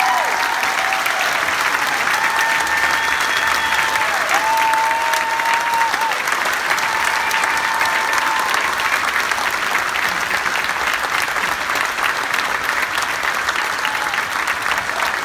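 Theatre audience applauding steadily at a curtain call. In the first half a few long held whoops rise above the clapping.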